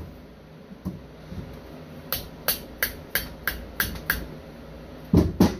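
A mallet tapping the rotor down into a Mercury outboard distributor: about seven light, sharp taps at roughly three a second, then two heavier knocks near the end.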